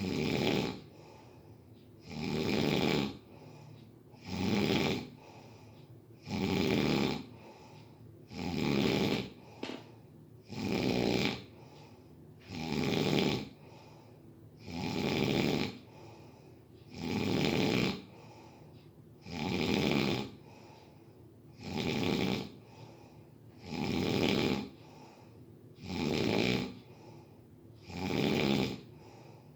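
A sleeper snoring steadily, one snore on each breath about every two seconds.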